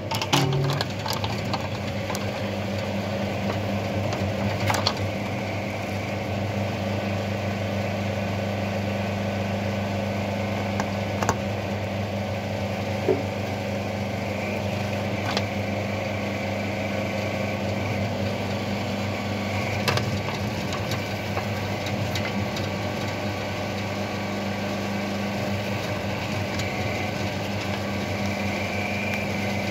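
Electric motor and hydraulic pump of a homemade electric mini excavator running with a steady low hum. A few sharp cracks and knocks come through as the root ripper tears into soil and roots.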